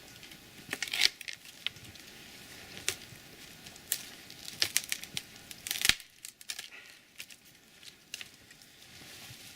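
Loppers snipping small branches, with sharp cracks of twigs breaking and brush crackling as it is pulled aside. The snaps come at irregular intervals, in a dense run a little past the middle, then it goes quieter.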